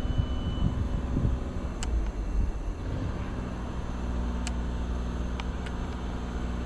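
Steady low mechanical hum with a rumble that wavers for the first few seconds and then settles, a short high beep right at the start, and a few faint clicks.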